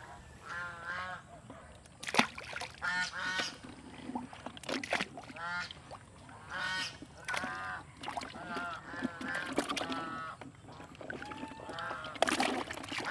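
Domestic waterfowl calling over and over in short runs of pitched calls. A few sudden splashes come from catfish being handled in a bucket of water.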